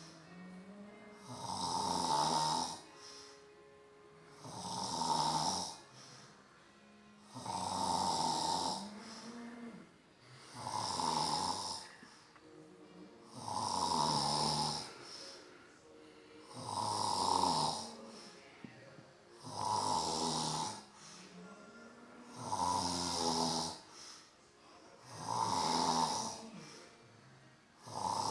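A sleeping man snoring in a steady rhythm, one long snore about every three seconds.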